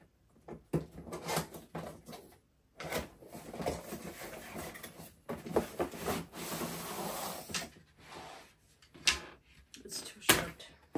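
Unpacking a cardboard furniture box: cardboard scraping and rustling as the contents are slid out, with scattered clicks. Near the end come two sharp knocks as curved wooden frame pieces are lifted out and bump together.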